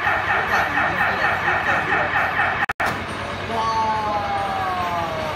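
Amusement-ride siren warbling up and down about four times a second, breaking off near the middle; then a tone glides slowly downward, like a siren winding down.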